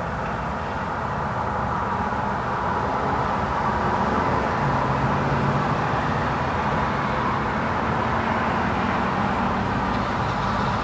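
Light road traffic: a steady wash of car engine and tyre noise that grows a little louder a few seconds in, with a low steady engine hum joining about halfway through.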